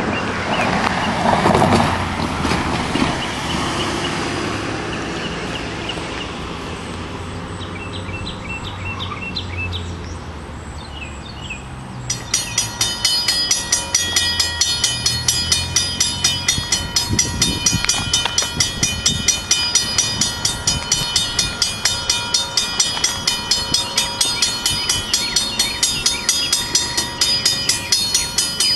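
Railroad grade-crossing warning bell starting up about twelve seconds in and ringing in fast, steady strikes, signalling that a slow train is approaching the crossing. Before it starts there is a low rumble of the approaching train, loudest in the first few seconds.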